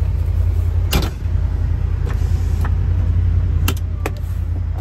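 Utility side-by-side (UTV) engine idling steadily, heard from inside the cab, with a few short sharp knocks, the loudest about a second in.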